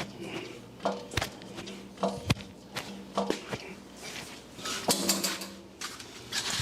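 Irregular knocks and clinks of metal and wood while a Bridgeport milling machine base is jacked up, over a faint steady low hum.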